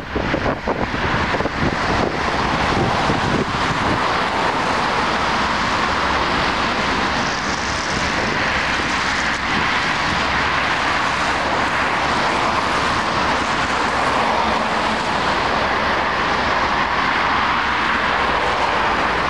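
Freight train of open wagons rolling past behind a ChME3 diesel shunting locomotive, a steady rushing drone of wheels and engine. Wind buffets the microphone in the first couple of seconds.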